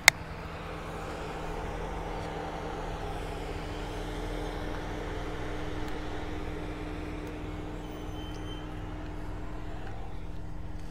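An engine running steadily, a low drone with a constant hum, swelling slightly and easing off again. A single sharp click right at the start.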